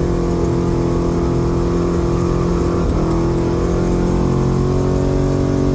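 Carburetted Chevrolet 350 V8 in a Toyota Land Cruiser Troopcarrier idling steadily, heard from inside the cab, with a small shift in pitch about three seconds in.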